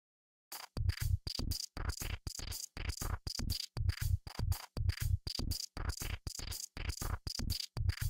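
Electronic music intro made of short, chopped rhythmic pulses, about four a second, each with a low thud and a thin high tone on top.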